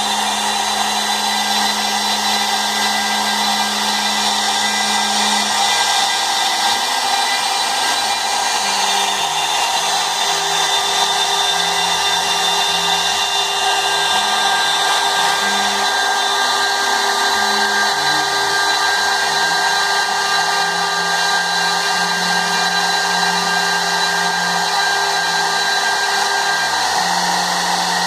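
Small 30 x 40 CNC router running: a steady spindle whine and hiss, with low motor tones from the axis drives that jump in pitch every second or so as the machine changes moves.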